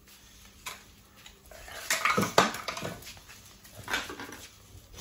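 A boxer and a black-and-white puppy playing, making short dog noises in a burst about two seconds in and again near four seconds, with some light clatter on the tiled floor.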